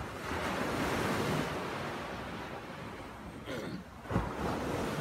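Sea waves breaking and washing up a sandy beach, one surge near the start and another about three and a half seconds in, with wind rumbling on the microphone. A short low thump about four seconds in is the loudest moment.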